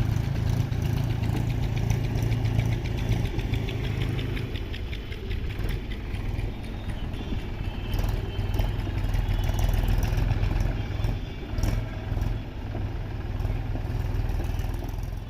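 A vehicle engine running steadily with a deep hum. From about two to five seconds in, a fast, even clatter sounds over it.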